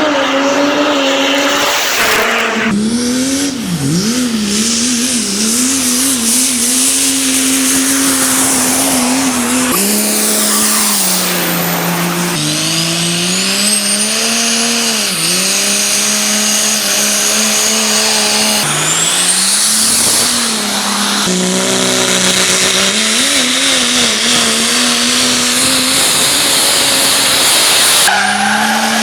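Hard-running diesel engines at high revs, their pitch rising and falling, with a high turbo whistle climbing in pitch twice; the sound changes abruptly several times as one clip cuts to the next.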